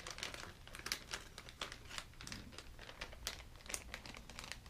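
Plastic lure packaging crinkling as it is handled: a quick, irregular run of small crackles.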